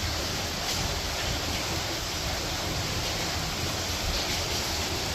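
Steady rain falling, a continuous even hiss with a low rumble underneath.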